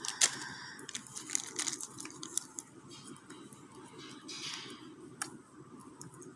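Slime with boba-like beads being squeezed and poked by hand, giving irregular small sticky squishes, crackles and a few sharp clicks.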